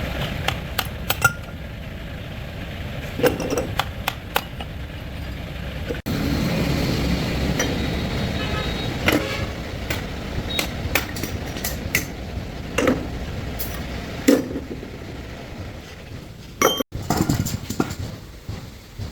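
Steady low engine rumble with scattered sharp metallic clicks and knocks of tools being handled.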